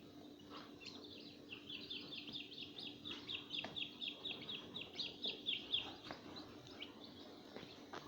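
Young chicks peeping: a quick run of short, high chirps, each sliding down in pitch, several a second and busiest through the middle.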